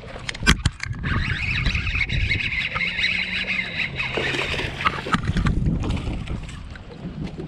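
Baitcasting reel cranked fast to fight a hooked bass in, its gears whirring for about four seconds after a few sharp clicks near the start, then water splashing as the fish reaches the boat.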